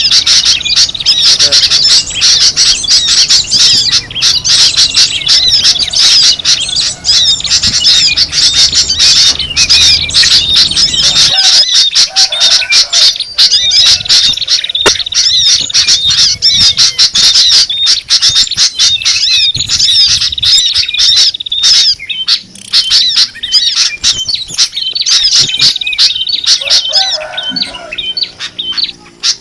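Dense, loud chatter of many small songbirds chirping and squawking rapidly all at once, a frenzied bird-lure recording used to draw wild songbirds in. A low background rumble under the calls cuts out about a third of the way through.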